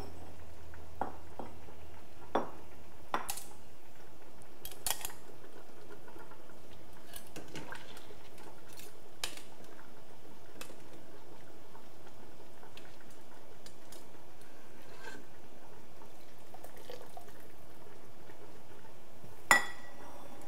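Scattered clinks and knocks of a ceramic bowl and metal tongs against a stainless steel pot as the bowl is dipped into hot water to warm it, with the loudest clank near the end.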